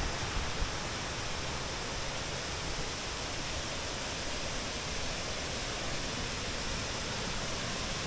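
Steady, even rush of falling water from the cascades of the Kuang Si waterfall.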